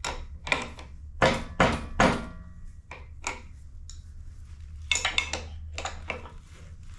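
Several sharp clanks and knocks of metal tools and parts being handled during assembly. One knock about a second in rings briefly, a cluster of quicker clicks comes about five seconds in, and a steady low hum runs underneath.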